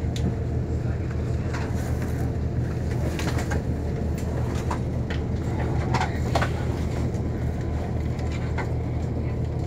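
Steady low drone of a standing passenger train, heard from inside the carriage, with scattered short bird calls over it.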